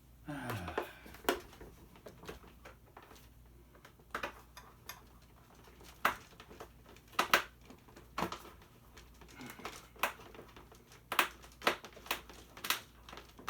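Irregular clicks and knocks of a tool working at stubborn screws in the plastic body of a children's ride-on toy car, with uneven gaps between strikes.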